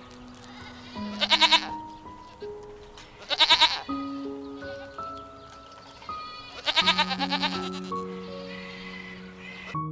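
Goats bleating three times, each a loud quavering call, the third the longest, over soft background music with sustained notes.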